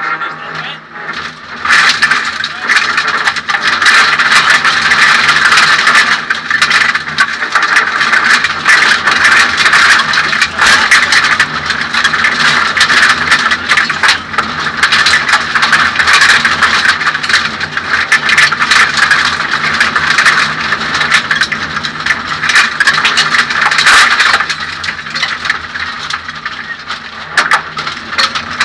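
Suzuki Swift 1600 N2 rally car heard from inside its stripped cabin at stage speed: the four-cylinder engine runs hard under loud road noise and a constant clatter of rattles and knocks from the bare shell. It eases off and gets quieter about 24 seconds in.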